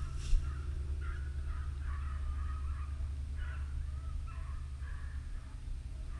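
Hunting dogs baying in the distance, a run of short repeated bays and yelps, over a steady low wind rumble on the microphone. A single sharp knock comes just after the start.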